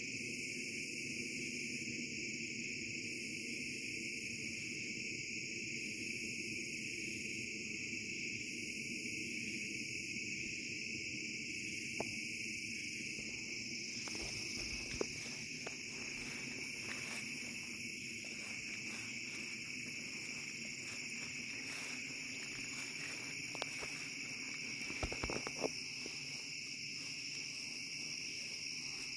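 Insect chorus: a steady high trilling, with a fainter, higher pulse repeating about every second and a half. A few faint clicks and taps come in the second half.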